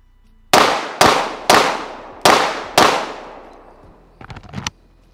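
Five pistol shots fired about half a second apart, each ringing out with a fading echo. A few faint clicks follow near the end.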